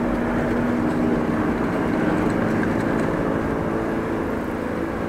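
Riding noise of a bicycle on a brick-paved street: wind over the action camera's microphone and tyre rumble, with a steady low motor drone underneath.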